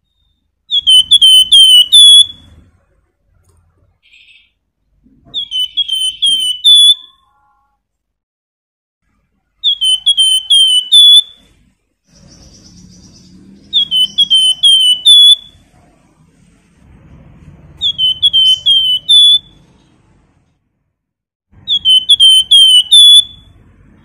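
Flamboyan (Horsfield's babbler) singing: six short phrases, each a quick run of four or five loud, high whistled notes, repeated about every four seconds.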